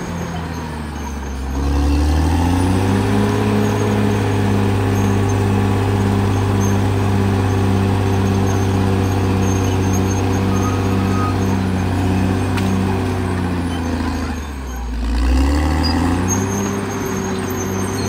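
Caterpillar D6R XL bulldozer's diesel engine working. Its pitch sags at the start, climbs back to a steady high rev by about three seconds in, then drops again about fourteen seconds in and rises once more.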